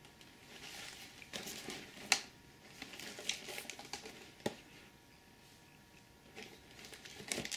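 A cardboard model kit box being handled and turned over in the hands: faint rustling and scuffing, with a few sharp taps, the clearest about two seconds and four and a half seconds in.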